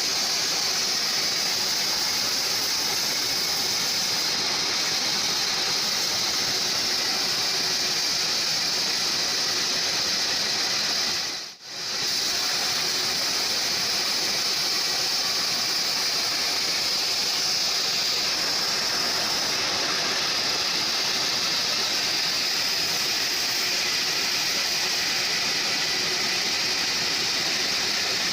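A home-built band sawmill running and ripping a log, a steady hissing saw noise with no change in pitch. It cuts out for a split second about eleven and a half seconds in, then carries on as before.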